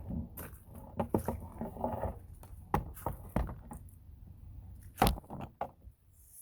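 Irregular clicks and knocks of vice grip pliers working on a car battery terminal, the loudest knock about five seconds in.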